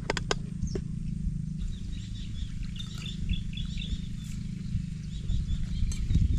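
Birds chirping, a quick run of short high calls lasting a few seconds, over a steady low rumble.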